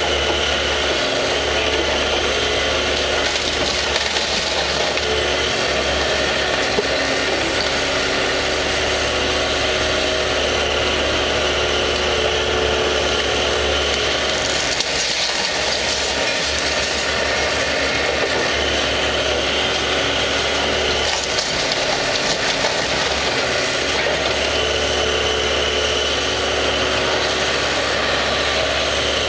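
CAT 312C hydraulic excavator's diesel engine running steadily under load, with a higher whine that comes and goes as the boom and bucket work. Wooden demolition debris scrapes and crunches.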